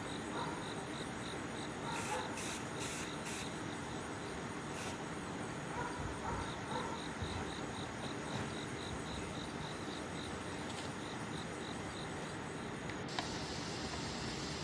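Short hissing bursts from a can of red lacquer spray paint, four in quick succession about two to three seconds in and one more near five seconds, over a faint steady chirping of about three pulses a second.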